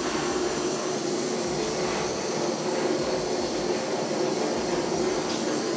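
Handheld gas blowtorch on a disposable cartridge burning steadily, a constant rushing hiss with a low hum under it, used to heat the de-rusted brake caliper parts before painting.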